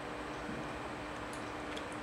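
Room tone: a steady hiss with a faint low hum, and a few faint clicks about one and a half seconds in.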